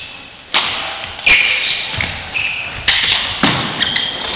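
Badminton rally: several sharp racket strikes on the shuttlecock about a second apart, each followed by a short echo in the hall, with short high squeaks of court shoes on the floor between the hits.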